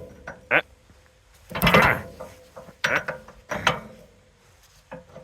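Several separate, irregular metal clanks and clicks from tools and parts being handled during repair work on a snow plow's hydraulic fitting, the loudest just under two seconds in.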